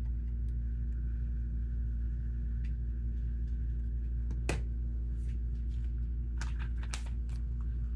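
Lego bricks being handled, with a sharp click about halfway and a quick run of clicks and clatters near the end, over a steady low room hum.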